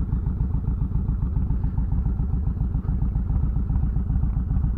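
Yamaha Road Star 1700's air-cooled V-twin engine running at low speed as the motorcycle rolls slowly, with a steady, low, even pulsing beat.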